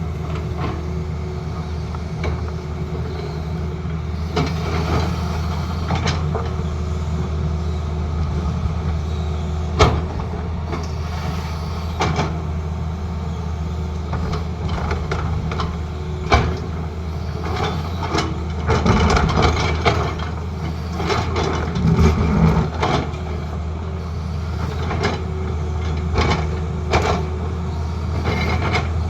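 Tata Hitachi excavator's diesel engine running steadily under work, with a few sharp knocks and short spells of louder, rougher running as it works the road bed.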